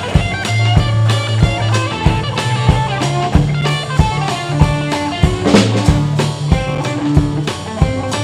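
Blues band playing an instrumental passage: guitar lines over a bass line and a steady drum-kit beat, with a cymbal crash about five and a half seconds in.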